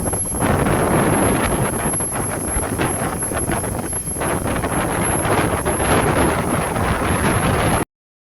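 Wind buffeting the microphone over a fishing boat's engine running under way at sea. The sound cuts off suddenly near the end.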